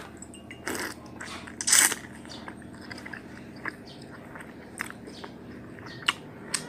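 Close-up eating sounds: biting and chewing pempek keriting, a curly fish cake dipped in cuko sauce, with wet mouth clicks and smacks. Two louder bites about a second and two seconds in, and a couple of sharp clicks near the end.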